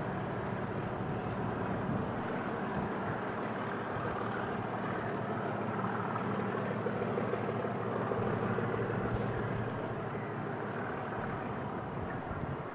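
English Electric V12 diesel engine of a Class 37 locomotive running steadily as the train moves away, a low drone that fades a little near the end.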